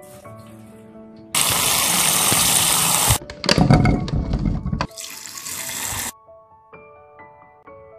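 Tap water running for about two seconds, rinsing spinach leaves. Then a handful of plum tomatoes tumbles into a nonstick pan with a clatter of knocks, followed by a shorter burst of running water. Soft background music plays throughout.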